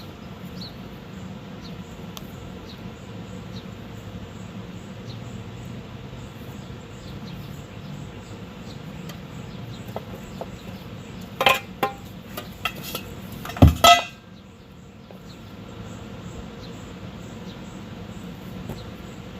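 Metal tools and parts clinking and clattering as a mechanic works around a truck's rear axle, over a steady low hum. A cluster of sharp clinks comes about two-thirds of the way in, ending in one heavy metal knock, the loudest sound, with a short clatter.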